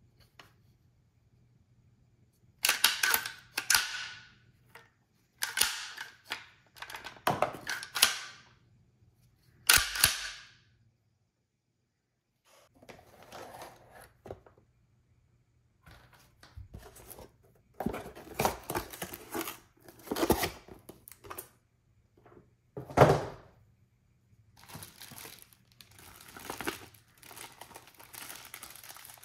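Unboxing handling noise: a string of sharp rustling and scraping bursts and knocks as a pump shotgun is handled in and out of its cardboard box, with one louder knock about two-thirds of the way in. Plastic bag crinkling near the end.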